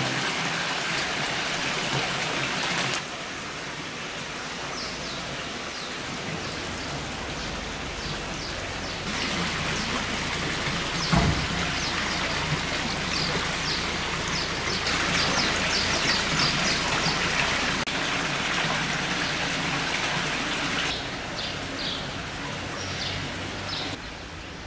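Water running steadily from the row of spouts of a public fountain into its stone troughs, with short bird chirps now and then.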